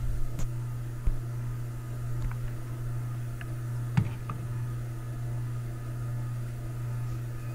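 Steady low hum of the workshop, with a few light clicks and one sharper tap about four seconds in as the gear-oil bottle and the steel drive-motor nut are handled on the bench.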